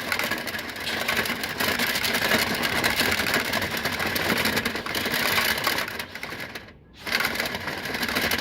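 Power drill spinning a rotary dryer-vent cleaning brush on extension rods inside a lint-clogged dryer duct, a fast steady mechanical rattle. It stops for about half a second shortly before the end, then starts again.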